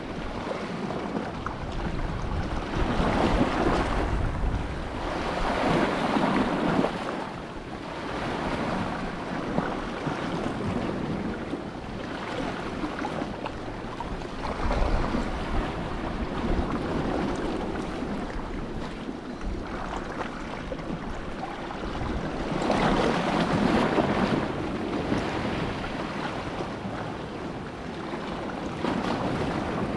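Sea waves washing in against the shore, swelling and easing every few seconds, with wind on the microphone.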